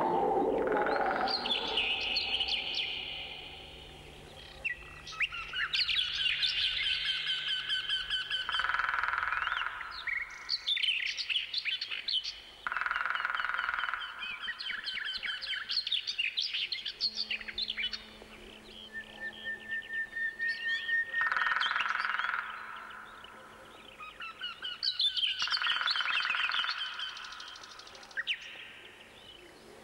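Songbirds singing in the trees, one song phrase of a couple of seconds after another, several birds overlapping.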